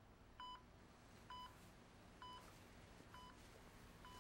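Hospital heart monitor beeping faintly and evenly, a short beep about once a second, each beep marking a heartbeat. A low steady hum of room tone lies beneath.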